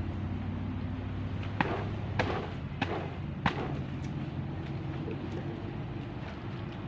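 Four sharp knocks, about two-thirds of a second apart, in the first half, over a steady low hum.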